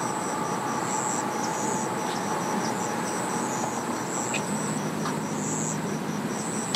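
Insects chirping in regular high-pitched pulses over a steady outdoor hum. A low drone comes in about five seconds in.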